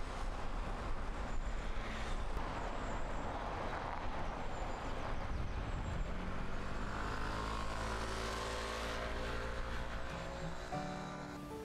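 Motor vehicle running with steady wind and road noise, its engine pitch rising through the second half. Music comes in near the end.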